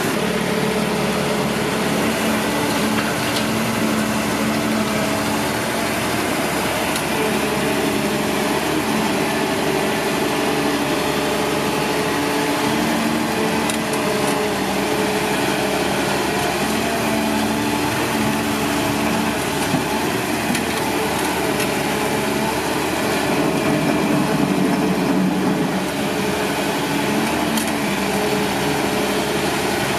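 Caterpillar 320D2 excavator's diesel engine running steadily, its pitch shifting up and down every second or two as the hydraulics take and drop load.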